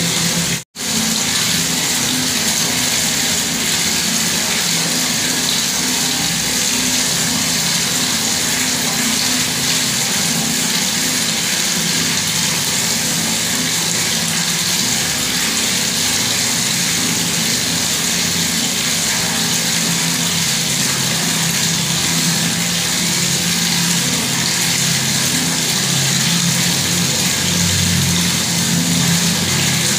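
Bathroom water tap running steadily, a constant rush of water with a low hum beneath it. The sound cuts out for a split second under a second in, then resumes unchanged.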